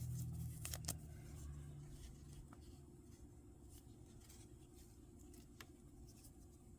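Faint handling of trading cards: a few light clicks and rustles over a low hum that fades after about two seconds.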